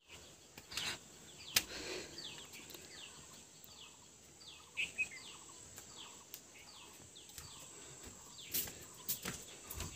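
A bird calling over and over in short falling notes, about two a second, faint over outdoor background noise, with a few sharp clicks or knocks, one about a second and a half in and two near the end.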